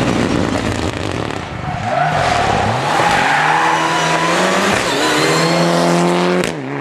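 Mitsubishi Lancer Evolution IX rally car's turbocharged four-cylinder engine revving hard as the car accelerates out of a corner. Its pitch climbs, drops at a gear change about five seconds in, then climbs again. Tyres squeal briefly about two seconds in.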